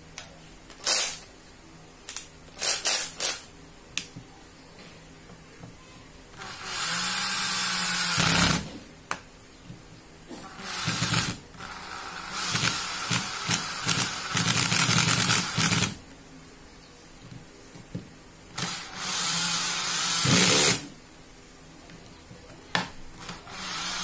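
National 12 V cordless drill-driver running in four bursts of about two to five seconds each, its motor spinning up and winding down with each trigger pull. A few sharp clicks come before the first run.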